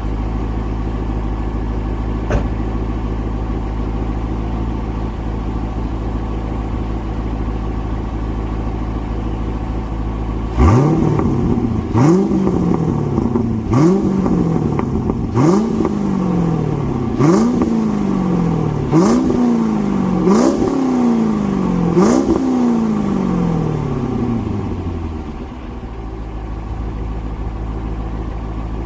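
A C5 Corvette Z06's LS6 V8 runs through its aftermarket exhaust, idling steadily. About a third of the way through it is blipped in seven or eight quick revs about a second and a half apart, each rising sharply and falling back, before it settles back to idle near the end.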